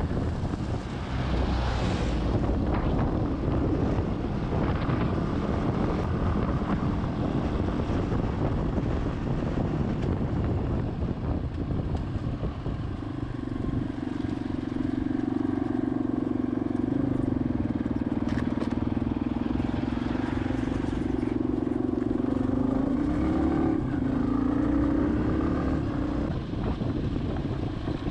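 Motorcycle engine running at a steady cruising speed on a gravel road, with wind rushing over the microphone. A steadier engine hum holds through the second half, rising slightly near the end.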